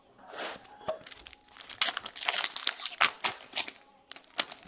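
Foil wrapper of a hockey card pack crinkling and tearing as it is ripped open by hand, in bursts of crackle that are thickest in the middle, with a short lull near the end before a few more sharp crinkles.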